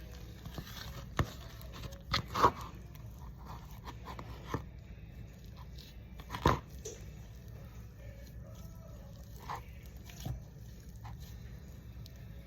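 Scattered handling noises while making slime: a few sharp knocks and crackles of containers and materials being handled on a table, the loudest about two and a half seconds in and again about six and a half seconds in, over a steady low hum.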